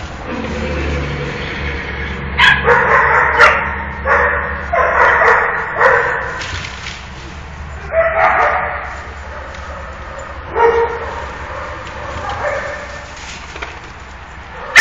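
Small dogs barking and yipping as they play-fight: a run of barks from about two to six seconds in, then single barks near eight, ten and a half and twelve and a half seconds, and a loud one at the end. A low steady hum runs underneath.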